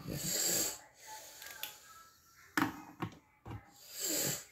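Two heavy breaths near the microphone, one at the start and one about four seconds in. Between them are a few sharp clicks and taps as markers are handled and set on the wooden table.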